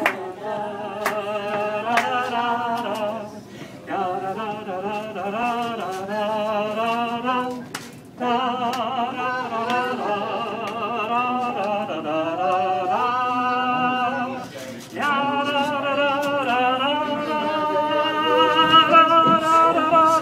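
A man singing solo and unaccompanied, holding long notes with a wide vibrato in several phrases, with short pauses for breath between them.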